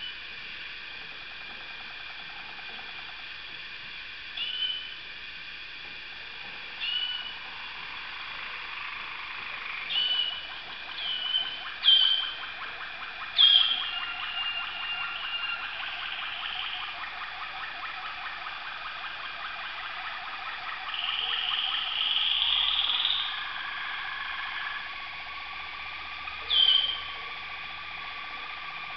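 Waterslager canaries singing: a fast, continuous trilled song with short sharp chirps breaking in every few seconds, loudest in the middle, with one more chirp near the end.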